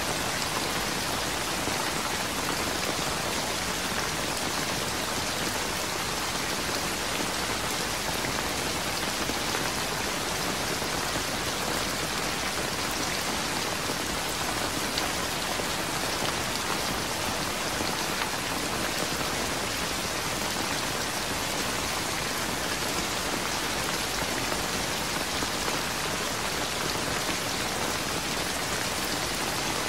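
Steady rain falling, an even hiss of drops on surfaces with no thunder.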